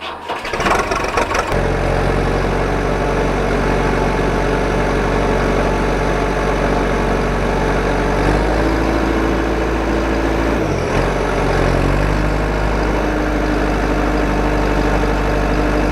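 A small engine starts up in the first second or so and then runs steadily at idle. Its note shifts around eight seconds in, dips briefly near eleven seconds, and settles again.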